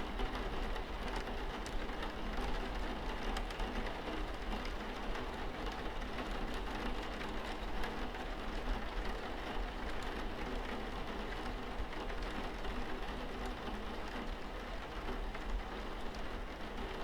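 Steady rain falling, with a dense patter of individual drops ticking through it and a constant low rumble underneath.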